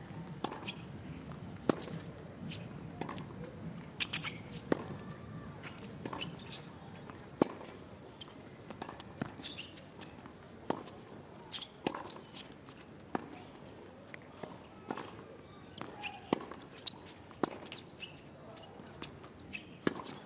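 Tennis rally on a hard court: a ball struck by rackets and bouncing, sharp pops about every second or so.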